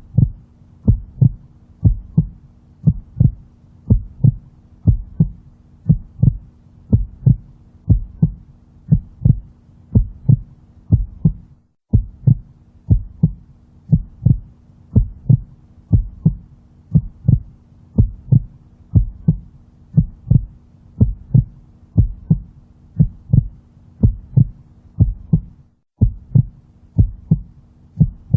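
Looped heartbeat sound: regular low lub-dub thumps in even pairs over a faint steady hum. The loop drops out for a split second about twelve seconds in and again near the end.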